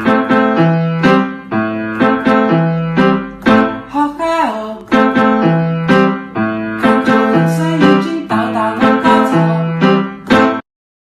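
Background music: a piano or electric-piano tune with a steady bass line and a regular beat, which stops abruptly near the end.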